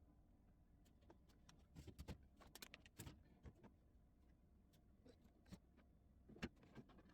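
Faint, scattered clicks and light knocks of containers and items being handled while a fridge is cleaned out, bunched together about two to three seconds in, with one sharper knock near the end.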